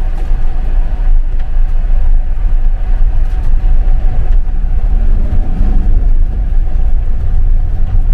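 Motorhome on the move, its engine and road rumble heard from inside the cab: a heavy, fluctuating low rumble with a steady high whine over it.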